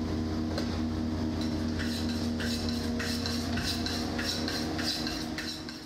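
Repeated short scraping strokes at a stainless steel sink, roughly two a second, over a steady low hum.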